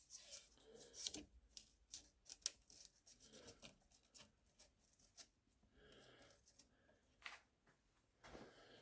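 Faint clicks, taps and short scrapes of hand tools and the wooden gunstock being handled during trigger inletting, with a sharper tap about two and a half seconds in.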